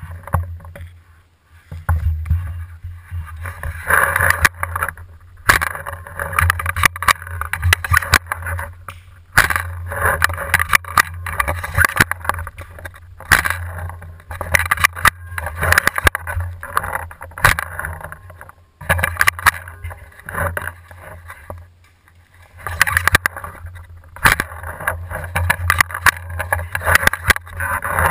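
Handling noise on a camera mounted on a paintball marker: stretches of low rumbling with rapid rattling clicks and knocks as the marker is shifted about, broken by a few short quieter gaps.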